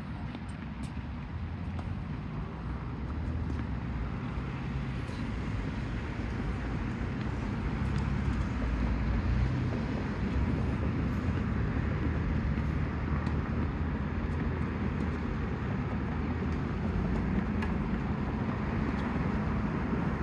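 Steady low rumble of road traffic that slowly grows louder, with a few faint clicks.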